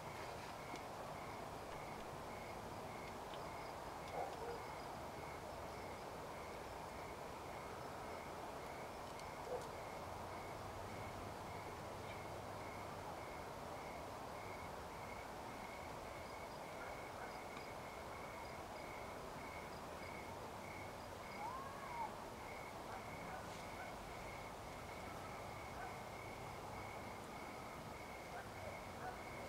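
Quiet rural dusk ambience: a faint high chirp repeating evenly a little over twice a second, with a few brief short calls around four and twenty-two seconds in.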